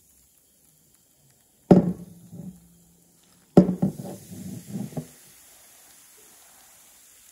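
Baking soda and vinegar fizzing in a small glass flask as the foam rises, a faint steady hiss from about five seconds in. Before it come two sharp knocks, each followed by a second or so of clatter.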